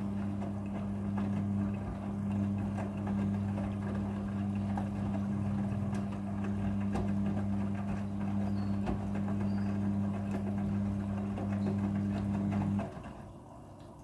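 Midea front-loading washing machine tumbling wet laundry in its drum: a steady motor hum with the clothes tumbling and knocking inside. The hum stops abruptly about a second before the end as the drum comes to rest.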